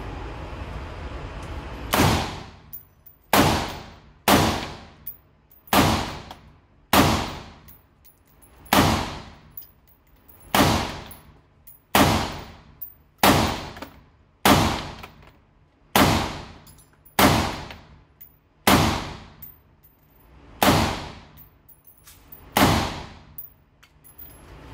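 M16A4-pattern 5.56 mm rifle fired in slow single shots, about fifteen sharp reports one to two seconds apart, each trailing off in echo on an indoor range. A steady hiss runs before the first shot, about two seconds in.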